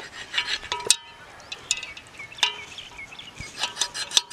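Cleaver blade knocking and scraping against a metal bowl of raw pigeon meat, irregular sharp clinks, one of them ringing briefly. A few short high chirps come near the middle.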